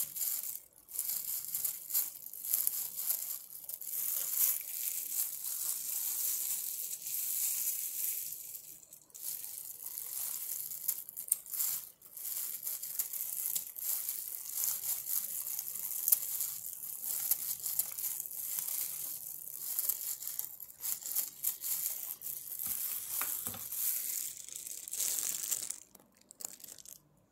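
Scissors snipping through fresh watercress stems and leaves: a rapid, continuous run of crisp, crunchy cuts that stops about a second before the end.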